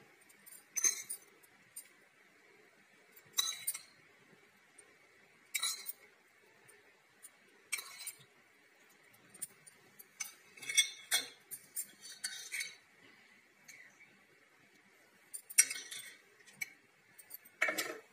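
Metal spoon clinking against a ceramic plate and a small pan while spooning tempering over dhokla: light separate clinks and scrapes, about one every couple of seconds.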